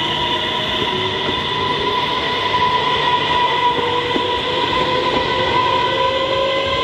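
X54 electric multiple unit passing at close range, its traction motors giving a steady whine whose pitch rises slowly as it gathers speed, over wheel and rail noise.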